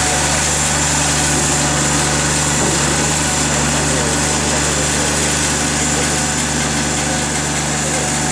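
Small tractor sprayer's engine running steadily at an even pitch.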